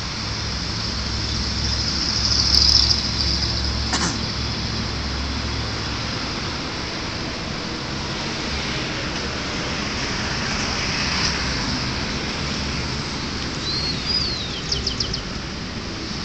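A dog digging in loose soil with its front paws: a steady scratching and scraping of dirt.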